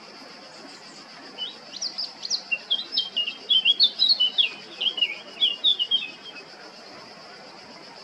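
Male Eurasian blackcap singing one rapid, varied warbling phrase of about five seconds, starting about a second and a half in. A steady high-pitched hiss runs underneath.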